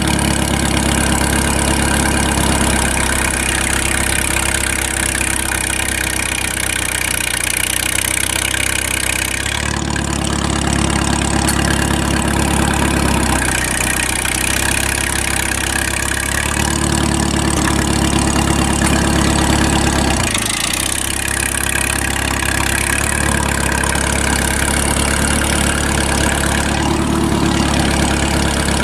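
Straight-piped Farmall H tractor's four-cylinder gasoline engine running while the tractor is driven, its exhaust note shifting every few seconds as throttle and load change.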